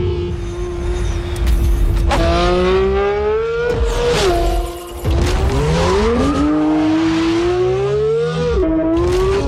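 Porsche 911 GT3 RS's naturally aspirated flat-six revving hard under acceleration. Its pitch climbs through each gear and drops quickly at upshifts, about four seconds in and again near the end.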